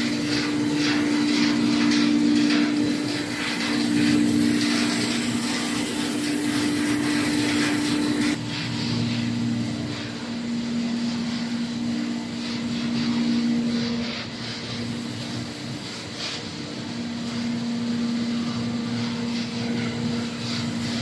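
Hydraulic waste paper baler running: a steady mechanical hum whose pitch shifts back and forth between two close notes, over a rough rattling noise that thins out about eight seconds in.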